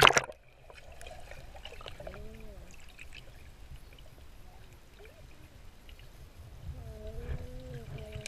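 A splash as the camera goes into the pool water, cut off within half a second. Then the low, muffled rumble of water heard underwater, with faint muffled voices from above the surface twice.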